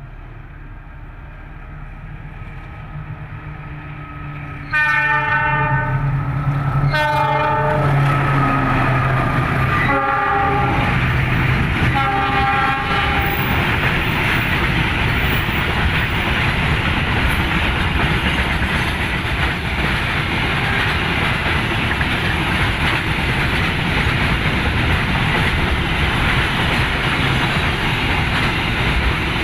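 Diesel locomotive sounding its horn in four blasts as the train approaches. The train then passes close by, its wheels clattering loudly and steadily on the rails through the switch.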